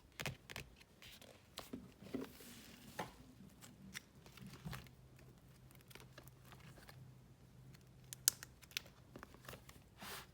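Packaging being handled and opened by hand: faint crinkling and rustling with scattered small clicks and taps, and longer tearing rustles about two seconds in and near the end. A faint steady low hum sits underneath.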